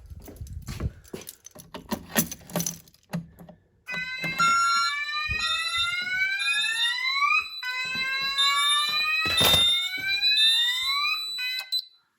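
Fire alarm sounders going off from a manual call point test, with the system running on battery backup after a mains failure. Starting about four seconds in, a slow whoop rises in pitch and repeats about every three and a half seconds, with a pulsing beep tone over it. The alarm cuts off just before the end. Before the alarm starts there are a few clicks and knocks.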